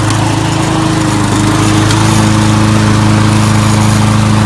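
Riding lawn mower's small engine running steadily, its pitch shifting slightly about two seconds in.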